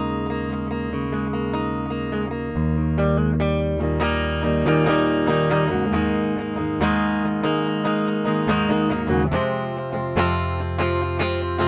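Gibson SG Standard electric guitar with its stock neck humbucker selected, played through an amp with a clean tone. Chords ring out for the first few seconds, then give way to busier picked notes and strums.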